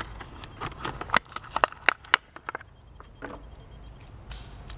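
Stiff plastic blister pack of a Hot Wheels car crackling and snapping as the car is pried out of it by hand: a quick run of sharp clicks over the first two seconds or so, then only a few faint ticks.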